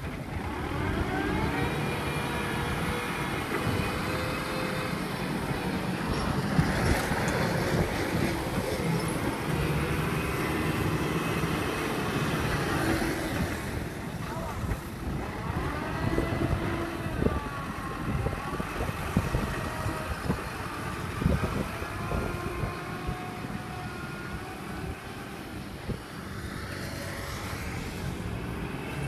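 Kubota tractor's diesel engine running under load as it pushes soil with its front blade.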